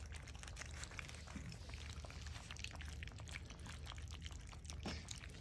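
A litter of puppies lapping and slurping goat's milk gruel from a stainless steel feeding pan, a dense run of small irregular wet clicks.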